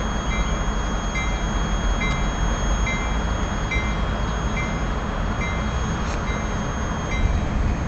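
Freight train of covered hopper cars rolling past with a steady rumble of wheels on rail, while a warning bell dings evenly, a little faster than once a second.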